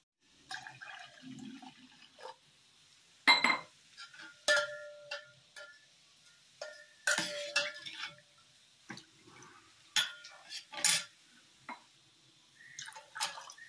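A steel ladle stirs thin tamarind water in a steel pot, clinking against the pot several times with short ringing tones, and the liquid sloshes.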